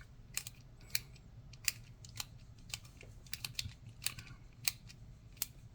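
Small sharp plastic clicks of a TSA combination luggage lock's number wheels being turned while its code is reset to 000, coming irregularly, one or two a second with some close pairs.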